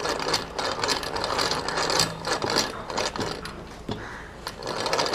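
Hand-cranked breast drill turning, its gears giving a fast whirring rattle as the bit bores into a wooden plank. The rattle eases off briefly about four seconds in, then picks up again.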